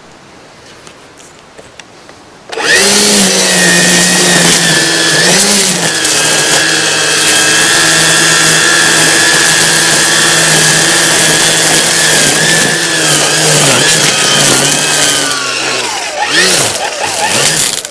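Milwaukee M18 Fuel battery string trimmer starting up about two and a half seconds in and spinning at high speed on its 'rabbit' setting, the nylon line whipping through weeds. The motor's pitch sags briefly when the line bites into growth and wavers as it winds down near the end.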